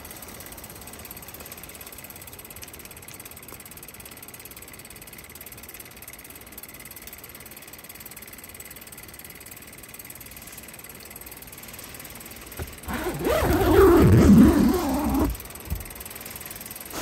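A steady rush of wind through the forest, heard through the open tent door. About thirteen seconds in, a loud rasp lasting roughly two and a half seconds as the Pomoly LEO 2 hot tent's door zipper is pulled shut.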